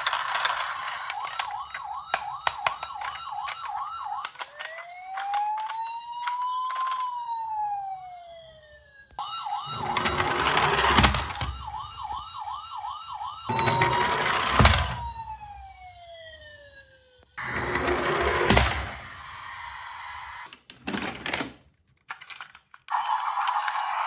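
Toy ambulance minicar's electronic siren, switching between a fast warble and a slow wail that rises and falls, broken by a few loud clattering knocks. It drops out briefly near the end and then comes back.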